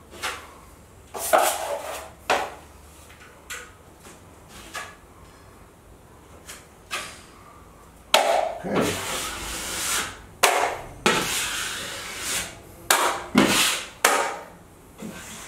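Drywall taping knife spreading and scraping joint compound on drywall. It makes scattered short strokes at first, then, about eight seconds in, a faster run of longer, louder scraping strokes.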